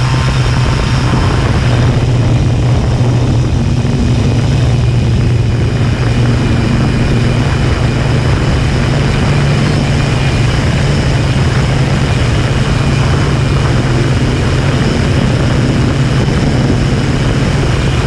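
Homebuilt quadcopter's electric motors and propellers running steadily in flight, heard close up from its own onboard camera: a loud, even buzz with a high motor whine above it.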